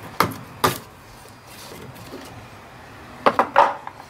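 Sharp clicks and clinks of hand work in a car's engine bay, a screwdriver and small plastic and metal parts being handled at the coolant sensor and hoses. They come in two pairs, one within the first second and one just past three seconds in.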